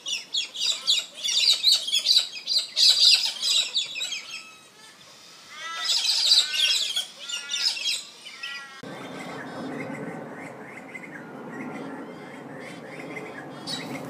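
A flock of galahs calling from a tree: a dense run of short, high-pitched calls that dips around five seconds in, returns, then fades after about eight seconds. Fainter calls continue over a steady low rumble that comes in then.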